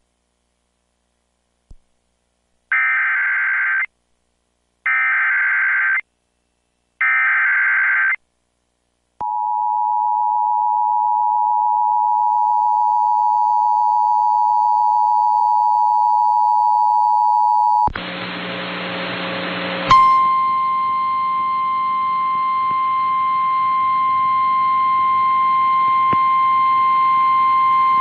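Emergency Alert System broadcast: three identical buzzy bursts of SAME header data about a second apart, then the two-tone EAS attention signal, held steady for about nine seconds. It ends abruptly in a short patch of static, followed by a single steady alert tone from the relayed National Weather Service broadcast.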